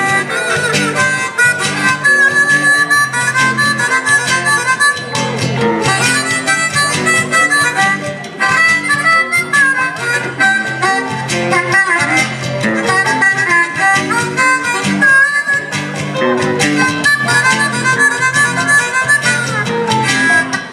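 Blues harmonica solo cupped to a vocal microphone, wailing sustained and bent notes, over live electric and acoustic guitar backing.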